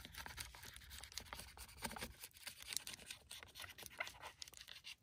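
Faint scratchy crinkling with irregular small clicks as Reflectix foil-bubble insulation is trimmed, a little at a time along a marked line.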